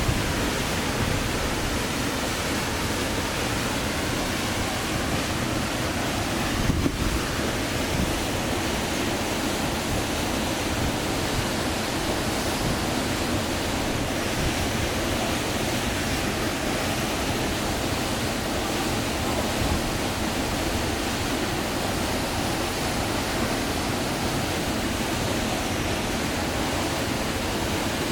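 Flowing river water, a steady rushing hiss with a brief swell about seven seconds in.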